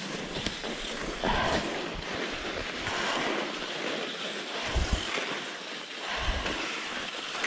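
Cross-country skis sliding over groomed snow, a steady swishing hiss, with wind rumbling on the microphone now and then.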